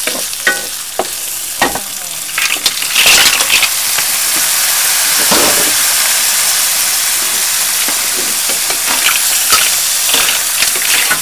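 Shrimp, garlic and onion sizzling in butter in a metal wok, scraped with a wooden spatula. About three seconds in, the boiled mussels are tipped in with a clatter of shells, then the pan sizzles steadily, with shells clacking as the spatula stirs them near the end.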